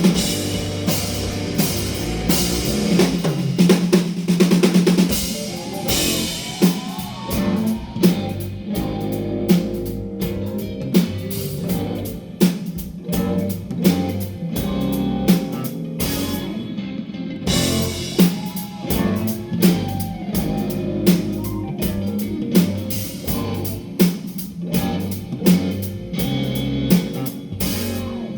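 Live rock band playing an instrumental passage: a drum kit keeps a steady beat under electric guitar and bass, with a few bent guitar notes and a brief break about two-thirds through.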